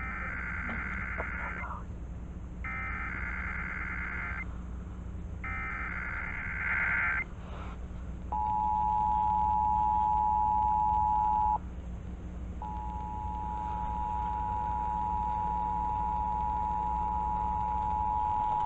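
Emergency Alert System Required Monthly Test broadcast over FM radio. It opens with three short bursts of screeching SAME header data tones. Then the two-tone attention signal (853 and 960 Hz) starts about eight seconds in, breaks off for a second near eleven seconds, and resumes, growing slowly louder over a steady low hum.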